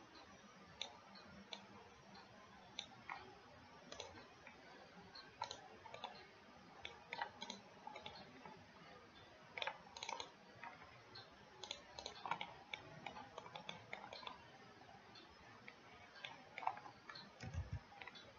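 Computer mouse buttons clicking at irregular intervals, roughly one or two clicks a second, over a faint hiss.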